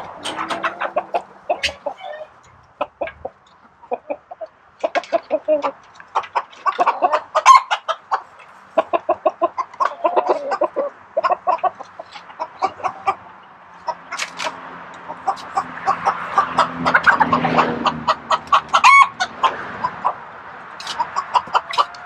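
A flock of chickens clucking continually, with a rake scratching through old straw bedding on the coop floor.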